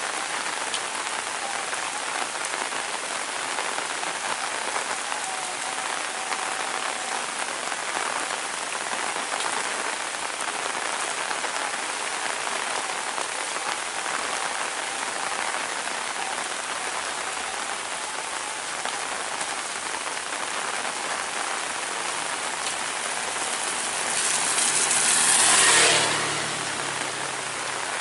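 Heavy rain falling steadily. Near the end, a vehicle passes, swelling and fading over about three seconds.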